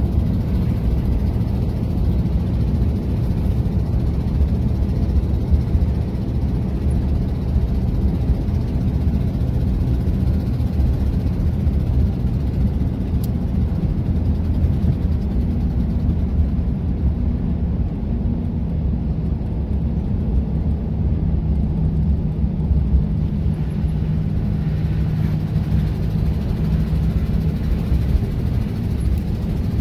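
Car cabin road noise while driving on a snow-covered road: a steady low rumble of tyres and engine.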